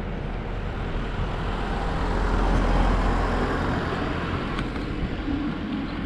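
A small van overtaking close by, its engine and tyre noise swelling to a peak about halfway through and then fading as it pulls ahead.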